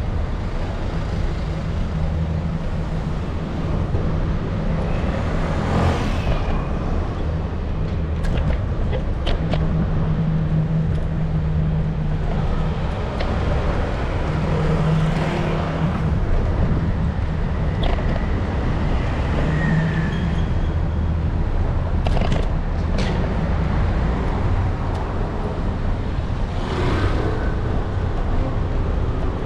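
City street traffic heard from an electric kick scooter riding along the road. There is a constant low rumble, a few vehicles swell past, and there are scattered short knocks.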